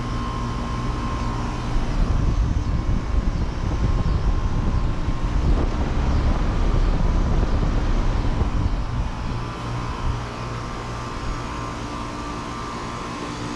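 Outdoor air-conditioner condensing units running: a steady compressor hum with the rushing air of the condenser fans. A louder low rumble swells from about two seconds in and eases off past the middle.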